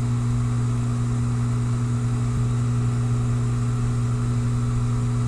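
Dishwasher running: a steady low hum from its pump motor.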